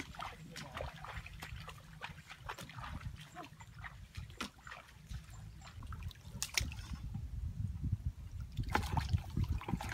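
Footsteps splashing through wet grass and shallow water. Near the end come louder splashes as hands work in shallow muddy water.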